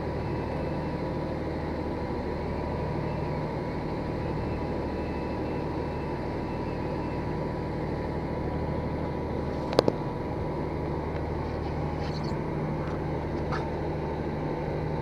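Steady low motor hum, with a faint high whine through the first half and a single sharp click about ten seconds in.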